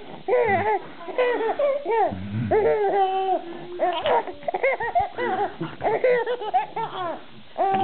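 Baby laughing in a fit of giggles: short, high-pitched rising-and-falling squeals of laughter one after another, with a brief lower voice about two seconds in.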